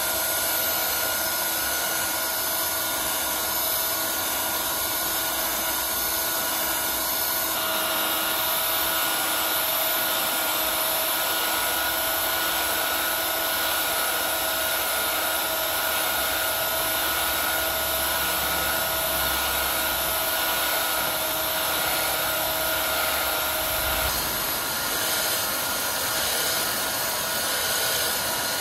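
Sawmill machinery running steadily with a whine and a hiss. The sound changes abruptly about 7 seconds in and again about 24 seconds in.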